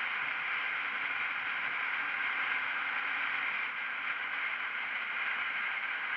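Steady wind rush and road noise of a KTM Duke 125 motorcycle under way, picked up by a camera mounted outside on the bike.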